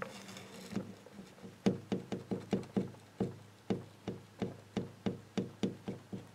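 A run of light, sharp knocks or taps, each with a brief pitched ring, coming irregularly at about four a second and starting about a second and a half in.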